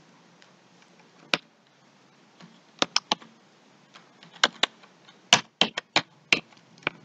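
Typing on a computer keyboard: about a dozen separate keystrokes at an uneven pace, one near the start and the rest bunched from about three seconds in.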